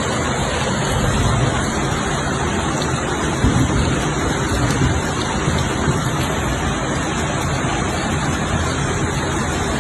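Steady, loud rush of tropical-storm water: heavy rain and fast-flowing floodwater, with small swells in the low rumble.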